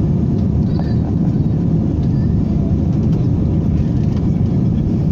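Airplane taking off: a loud, steady, low rumble of engine and air noise that holds even throughout.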